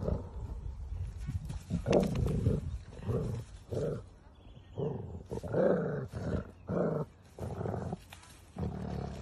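Dogs growling at each other in a play fight: a string of short growls, one or two a second.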